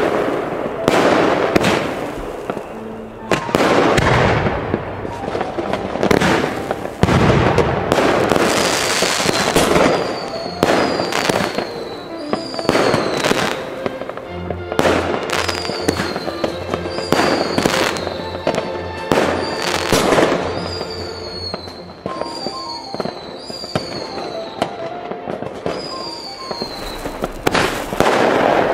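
Fireworks rockets and firecrackers going off over a town, a dense stream of bangs and crackling. From about a third of the way in, a string of short falling whistles repeats roughly once a second.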